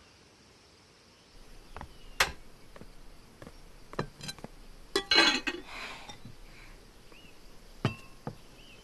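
Kitchenware clinking and knocking: scattered light clinks of glass, crockery and utensils while food is prepared at a stove, with one louder, ringing clink about five seconds in.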